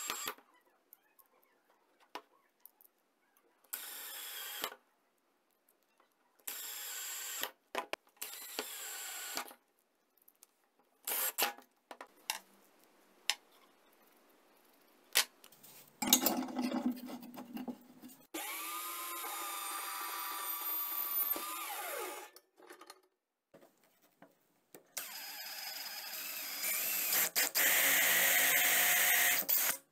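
Cordless drill running in short whirring bursts as it drives small screws into a wooden block, with scattered clicks and knocks in between. Later it runs steadily for several seconds, and near the end it bores a hole into the wood.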